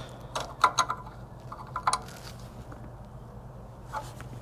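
A wrench clinking on a power-steering hose fitting as the line is threaded onto the pump and tightened: a few sharp metal clicks in the first two seconds, then a quieter stretch with one more faint click near the end, over a low steady hum.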